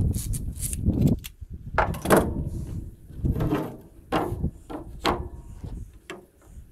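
A series of knocks and clunks from work at the bench, about half a dozen, over gusty wind buffeting the microphone.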